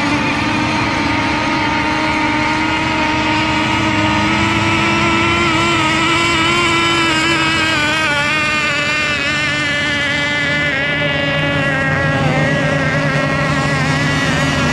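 Several radio-controlled racing boats running at speed, their motors making overlapping high-pitched tones that waver and shift in pitch as the boats race and turn.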